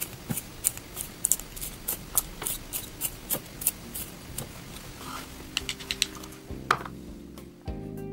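Irregular crisp clicks and scrapes, two or three a second, of a pencil being turned in a Faber-Castell UFO hand-held pencil sharpener. Background music comes in near the end.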